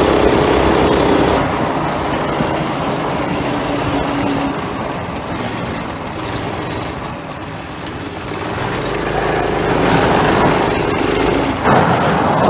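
Go-kart's small engine running under throttle, easing off about a second and a half in, then picking up again with a rising pitch over the last few seconds.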